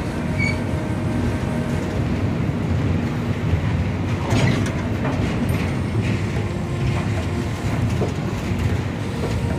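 Express passenger train running over a steel truss bridge, heard from inside an air-conditioned coach: a steady rumble and clatter of wheels on rails, with a sharper clank about four and a half seconds in.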